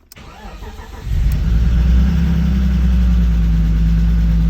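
BMW E36 325i's straight-six cranking on the starter for about a second, then catching and settling into a steady run. The engine is starting after its fuel pump was replaced to cure a no-start.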